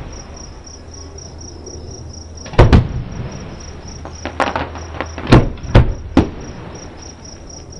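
Aerial firework shells bursting about a mile away: a series of sharp bangs, about six in all, starting about a third of the way in. Crickets chirp steadily underneath.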